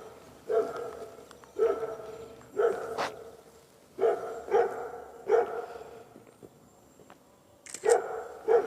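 A dog barking repeatedly: about eight short barks in uneven bunches, with a pause of a couple of seconds just past the middle.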